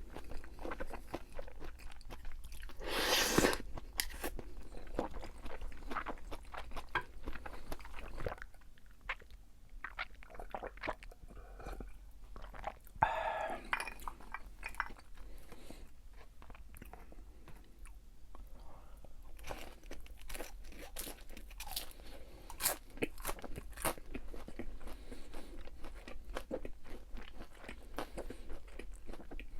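Close-miked chewing and crunching of crispy fried food: irregular crackles and bites throughout, with a louder burst of noise about three seconds in.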